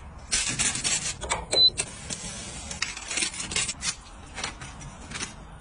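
Aluminium foil crinkling and rustling in a dense run of irregular crackles for about four seconds, then thinning out to scattered crackles.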